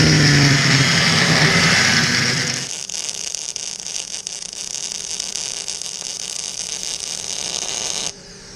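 GAZ-24 Volga with a swapped Toyota 1UZ V8 driving, the engine note sinking slowly in pitch under a loud hiss of wind and road noise. About two and a half seconds in the engine sound falls away, leaving a quieter hiss that cuts off abruptly near the end.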